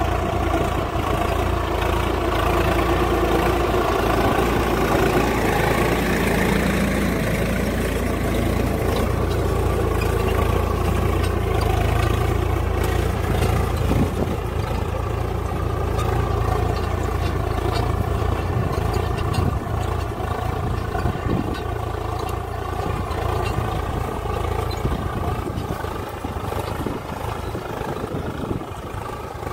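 Swaraj 855 FE tractor's three-cylinder diesel engine running steadily under load while pulling a disc plough through the soil. It grows somewhat fainter in the last few seconds as the tractor moves off.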